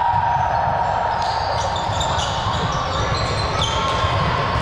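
Indoor court ambience during a recreational volleyball game: a steady low rumble of the hall with faint, thin high squeaks.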